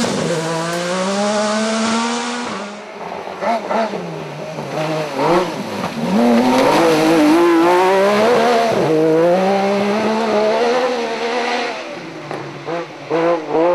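Peugeot-Cosworth rally car's 2.5 V6 Ford Cosworth engine revving hard at full attack on gravel stages, its pitch rising and falling over and over with throttle and gear changes, loudest in the middle. Tyres scrabble on the loose gravel.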